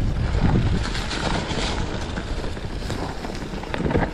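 Mountain bike riding fast down a rough dirt singletrack: wind buffeting the microphone, with tyre noise and many short knocks and rattles from the bike over the rough ground.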